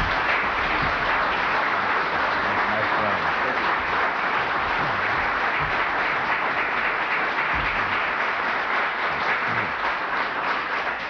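Audience applauding steadily, fading near the end.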